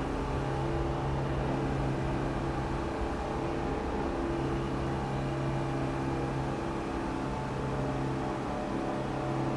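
New York City subway station ambience: a steady mechanical rumble and hiss with a low droning hum, which dips for a few seconds and then swells back.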